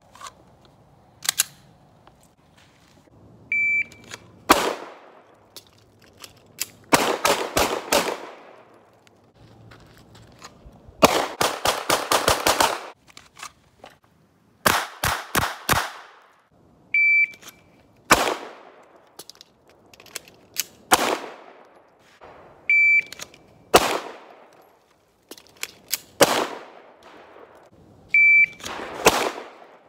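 Handgun shots, some single and some in fast strings of five to eight, each shot with a short echo. Several strings begin about a second after a short high electronic beep from a shot timer.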